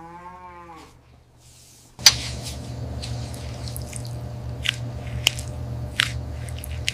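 Sharp crunching snips of hoof horn being cut, one every half second to a second, over a steady low hum, starting about two seconds in. At the start a short pitched sound rises and falls, then fades.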